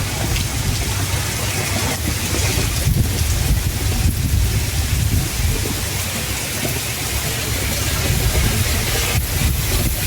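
Heavy rain pouring down steadily, a dense even hiss, with a low rumble underneath.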